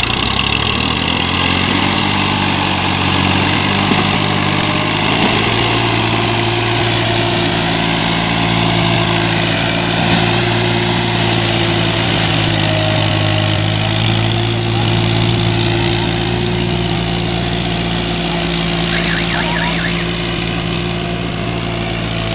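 Farm tractor's diesel engine pulling a trolley loaded with earth, running steadily under load as it drives off; the engine note builds up in the first couple of seconds and then holds.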